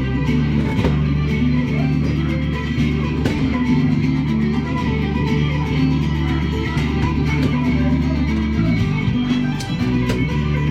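Music with guitar and a bass line.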